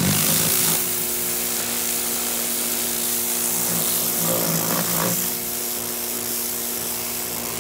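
Sun Joe SPX2688-MAX electric pressure washer running. Its motor and pump give a steady hum under the loud hiss of the water jet spraying.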